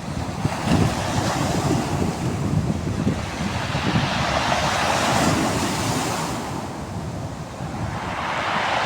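Water rushing and washing over stones, a steady hiss that swells and eases in slow surges, with wind buffeting the microphone.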